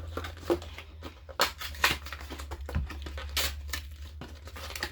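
Plastic packaging of apple-slice snack packs crinkling and rustling as they are handled, with several sharp crackles and clicks, over a steady low hum.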